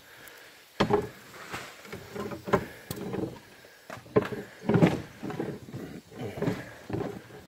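Footsteps on bare OSB roof sheathing: hollow wooden thuds at a steady walking pace, with a scuff of grit and shingle debris under the boots.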